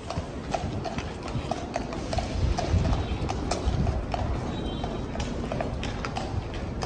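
Shod hooves of two cavalry horses, led at a walk, clip-clopping on stone paving: an even beat of about two hoof strikes a second.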